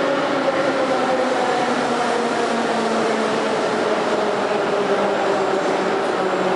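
Moscow metro 81-765 'Moskva' train standing with its doors closed, its onboard equipment giving a steady hum and whine whose tones slowly fall in pitch.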